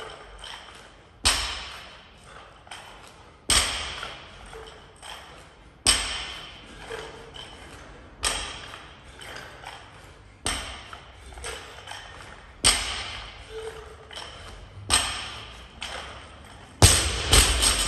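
A loaded barbell with bumper plates comes back down to the floor on each power clean rep, a thud with a metallic ring about every two seconds. Near the end the bar is dropped and bounces several times.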